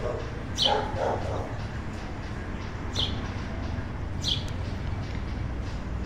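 Three short, high bird chirps, each dipping in pitch, with a dog barking about a second in.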